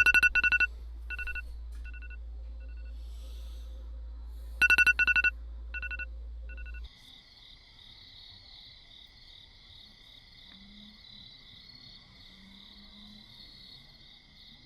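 Rapid electronic beeping in groups, loud bursts then single quieter beeps, over a steady low hum. About seven seconds in the hum cuts off and crickets chirp steadily.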